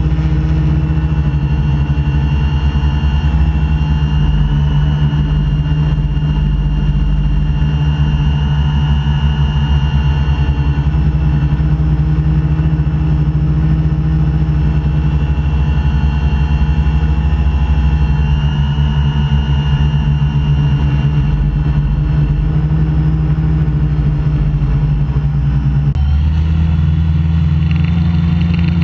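AeroQuad quadrotor's electric motors and propellers buzzing steadily, heard from the craft itself in flight. The pitch of the motor tones wavers gently up and down, and the sound shifts near the end as the craft comes down low.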